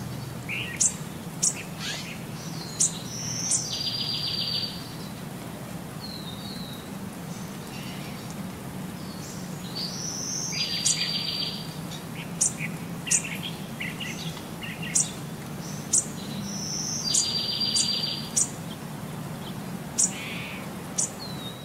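Birdsong: sharp high chirps and a short buzzy trill, with the same phrase repeating about every six and a half seconds over a steady low hum.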